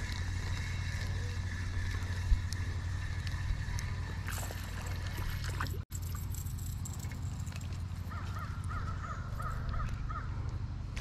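A bird giving a quick run of short, evenly repeated calls near the end, over a steady low hum.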